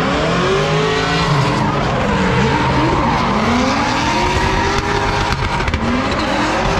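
Drift cars at full throttle, their engine notes rising and falling over and over and overlapping, over steady tyre squeal.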